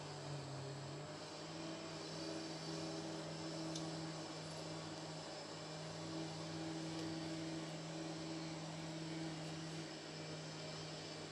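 A steady mechanical drone holding one low pitch with a few overtones, over a background hiss.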